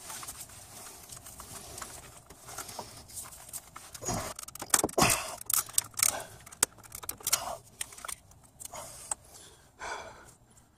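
Small metal pry tool clicking and scraping against the old camshaft seal and its housing as the seal is levered out of the engine. Scattered clicks and short scrapes, busiest in the middle.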